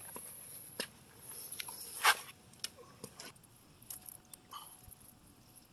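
Screwdriver and small metal parts being worked at an alternator's carbon-brush holder as the new brush unit is refitted: scattered light clicks and ticks, with one louder brief scrape about two seconds in.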